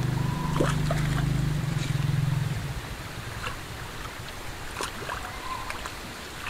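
Shallow water running over a concrete weir apron, with a few short sharp ticks scattered through. A steady low hum sits under it for the first two and a half seconds, then fades.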